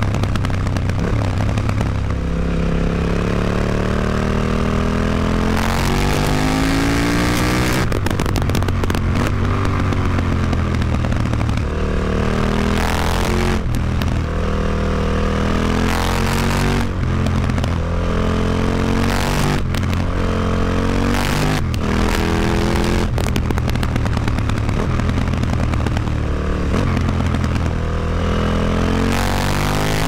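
KTM 950 Adventure's LC8 V-twin engine running through an Akrapovic exhaust with its dB killer fitted. It accelerates again and again, the pitch climbing in each gear and dropping back at every shift.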